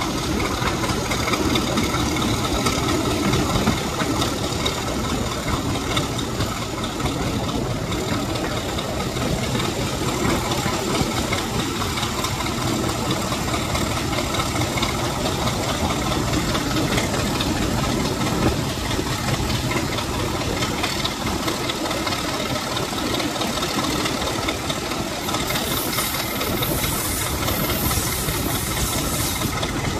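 Class 33 diesel-electric locomotive's Sulzer eight-cylinder diesel engine running steadily under way, heard from the cab side window. A louder hiss joins in for a few seconds near the end.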